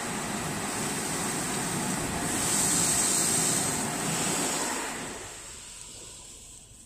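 Automatic car-wash water jets spraying the car, heard from inside the cabin as a steady hiss of water. It grows loudest about three seconds in, then dies away after about five seconds.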